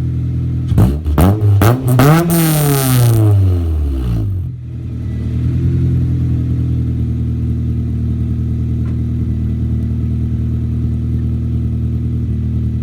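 Acura CSX Type S's 2.0-litre four-cylinder engine, run through a K-tuned race header and straight-piped turndown muffler with no catalytic converter or resonator, idling loudly and being blipped: several quick revs about a second in, then one longer rev that rises and falls back to a steady idle by about four and a half seconds in. It is a cold start.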